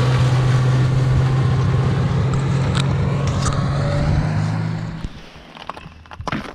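Snowmobile engine running steadily, then dying away over about a second, five seconds in; a few small knocks follow.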